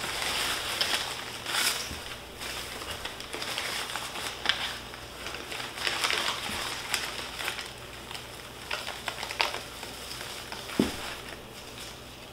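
Shredded-paper packing and newspaper wrapping rustling and crinkling as hands dig through a cardboard box and lift out a wrapped plant, with irregular crackles and one sharper tick near the end.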